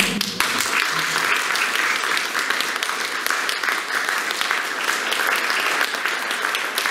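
Audience applauding, breaking out suddenly as the clarinet music ends and then carrying on steadily.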